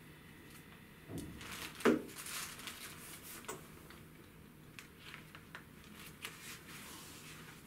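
Handling sounds during a laptop unboxing: a louder rustle and bump a second or two in, then scattered light clicks and taps as the laptop and its packaging are handled.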